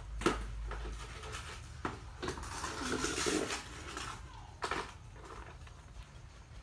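Handling noises as a baby monkey is bottle-fed and picked up: a few sharp taps and clicks, and a longer scuffling noise around three seconds in, over a low steady hum.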